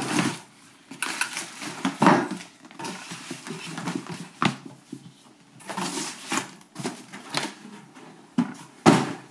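Cardboard shipping carton and a rigid marble-paper gift box being handled: rustling and scraping, with several sharp knocks, the loudest about two seconds in and near the end.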